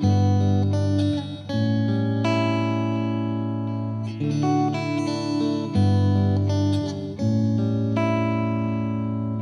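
Background instrumental music led by a plucked guitar, with new notes or chords struck every second or so.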